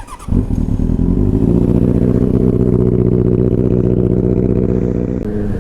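Benelli TNT 600i's inline-four engine running steadily at idle, a loud even note that shifts slightly about five seconds in.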